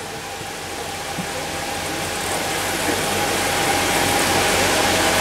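Crowd applauding, the clapping swelling steadily louder.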